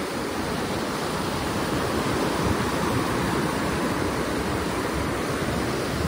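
A steady, even rushing noise with no distinct events or rhythm.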